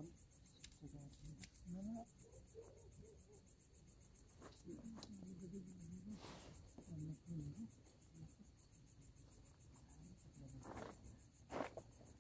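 Crickets trilling faintly and steadily, with a few soft clicks and rustles of handling.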